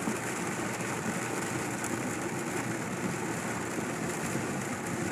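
Steady engine and road noise heard from inside a moving car, an even rumble with no distinct knocks or events.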